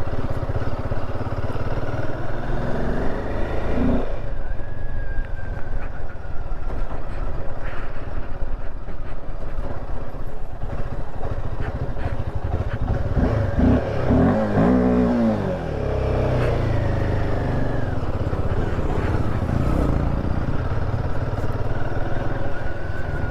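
Royal Enfield Himalayan 450's single-cylinder engine running steadily as the motorcycle is ridden, with its note rising and falling for a few seconds about halfway through.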